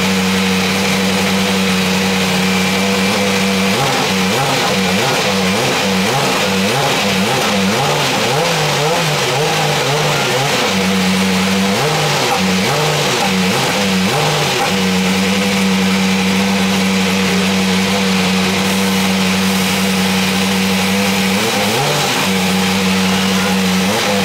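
Dallara SF14 Super Formula car's 2.0-litre turbocharged four-cylinder engine being warmed up. It idles steadily and is blipped on the throttle in repeated bursts: about four seconds in for several seconds, again around twelve seconds, and near the end.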